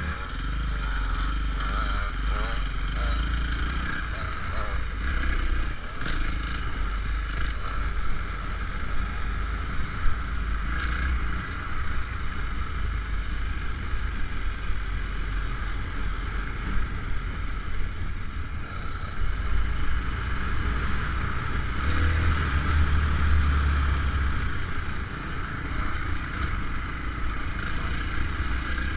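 Motocross bike engine running and revving as the bike is ridden over a dirt track, heard from a camera mounted on the bike, with wind buffeting the microphone. A single sharp knock about ten seconds in.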